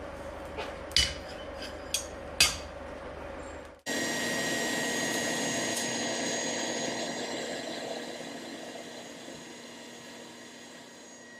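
Steel blacksmith tongs clinking a few times against metal. Then, after an abrupt cut about four seconds in, the forge runs with a steady rushing noise and a faint high whine, slowly getting quieter.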